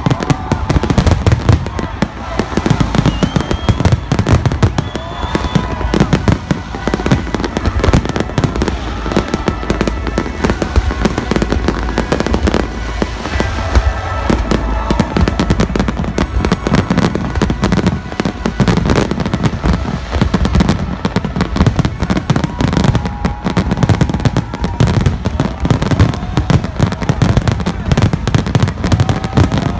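Large aerial fireworks barrage: shells bursting in rapid, continuous bangs and crackles with no let-up.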